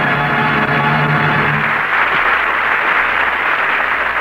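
An orchestra holds the final chord of the radio show's closing theme, which ends about two seconds in. A steady wash of studio-audience applause carries on after it.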